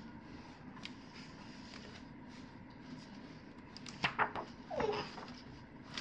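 Quiet rustle and flutter of a hardcover picture book's paper pages being turned by hand. About four seconds in, a small child's short babbling voice sounds briefly in the background.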